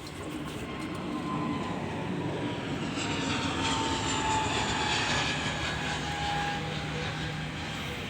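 Passing engine noise that swells over a few seconds and then eases, with a whine slowly falling in pitch.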